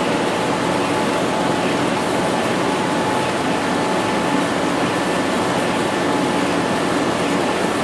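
Sound-effect ambience of a science-fiction laboratory: a steady, dense machine hum and hiss, with a few faint held tones over it.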